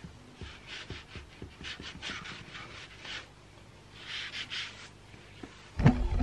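A rag rubbing back and forth over the BMW K100's aluminium shaft-drive housing, polishing it with metal polish: a run of swishing strokes in short spells. There is a loud bump near the end.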